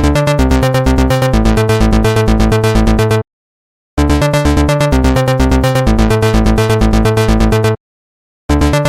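Electronic background music with a fast, steady beat, cutting out suddenly to silence twice for under a second each time before starting again.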